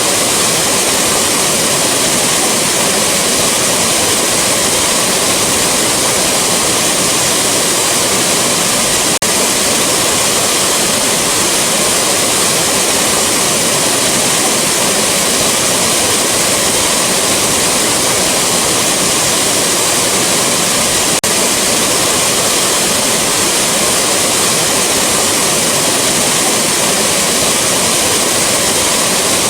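Rushing waterfall: a steady, dense roar of falling water, with a brief tiny dropout about nine seconds in and a faint tick near 21 seconds.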